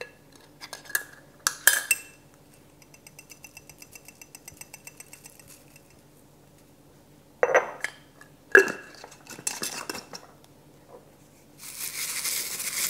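A glass jar of dried oregano being opened and handled: clicks, a run of quick ticks from the lid, and sharp clinks of glass against the stone mortar as the herb is tipped in. About a second before the end, a stone pestle starts grinding the dried oregano in the mortar, a steady gritty scraping.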